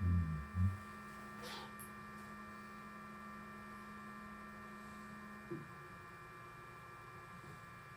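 Flashforge desktop 3D printer running its first print, with a steady hum and a set of steady whining tones from its motors and fans. The lowest hum cuts off with a small click about five and a half seconds in. Two low thumps come in the first second.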